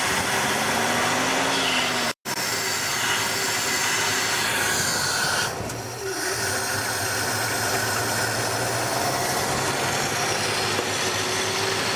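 1964 Dodge Dart slant-six engine running fast and loud with its throttle stuck wide open, soon after a hard start on long-stale fuel. The sound drops out for a split second about two seconds in.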